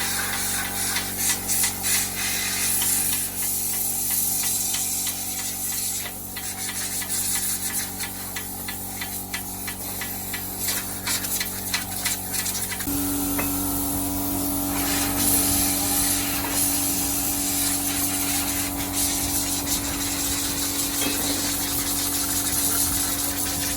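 A machine running steadily with a strong hiss over it, with a run of rapid clicks for a few seconds in the middle. About halfway through, a new steady hum joins in.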